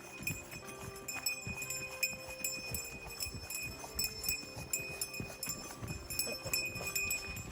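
Footsteps and rustling on the forest floor, irregular knocks and crunches, with a steady high ringing note above them that swells now and then.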